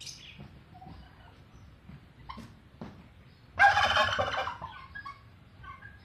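Domestic turkey tom gobbling once: a loud, rapid, rattling call lasting about a second, starting about three and a half seconds in. A few faint short sounds come before and after it.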